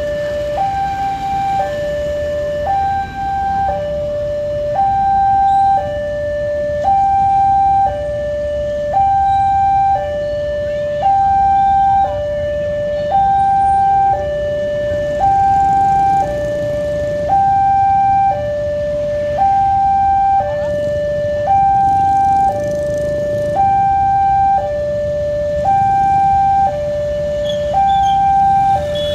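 Railway level-crossing warning alarm sounding, an electronic two-tone signal that alternates evenly between a higher and a lower note, each held about a second. It warns that a train is approaching and the barrier is closing. A steady low rumble lies beneath it.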